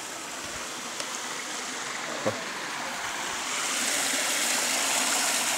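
Small brook splashing and rushing over a rocky cascade, growing louder a little past halfway. A brief knock about two seconds in.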